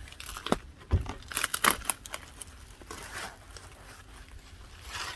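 Packaging crinkling and tearing as table parts are unpacked from the box, with a cluster of sharp knocks and a low thud in the first two seconds, then softer rustling.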